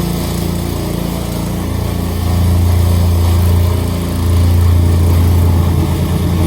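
Small gas engine of a vibratory plate compactor running at working speed with a steady, low, pulsing drone as the plate tamps the ground. It gets a little louder about two seconds in and again about four seconds in.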